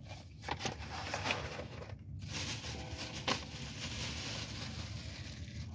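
Plastic food packaging being handled: rustling and crinkling with scattered sharp clicks.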